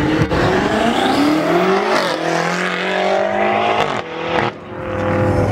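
Car accelerating hard off a drag-strip launch, its engine pitch climbing through the gears. There is a gear change about two seconds in and another just after four seconds.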